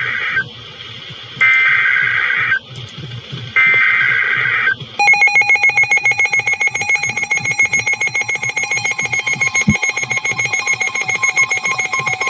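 Emergency Alert System signals: three buzzing bursts of two-tone digital alert data, each about a second long, then about five seconds in a loud, rapidly pulsing alert tone. Together they announce a new severe thunderstorm warning.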